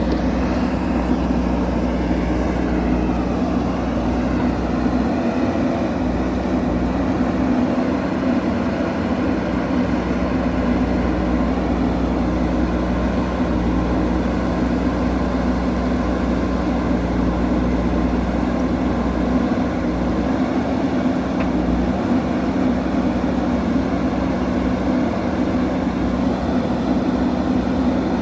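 Diesel engine of a JCB backhoe loader running steadily, a constant low drone.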